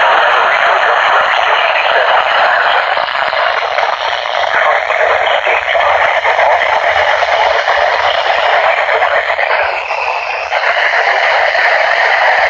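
Weather radio receiver giving a steady hiss of static: a weak, distant weather-band FM signal breaking up into noise.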